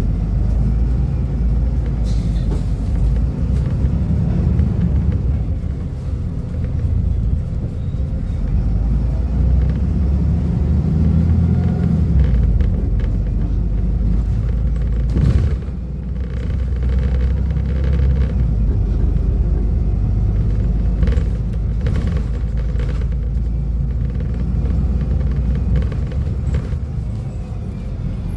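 Volvo B250RLE bus diesel engine running with a steady low rumble that swells and eases, and a single sharp knock about fifteen seconds in.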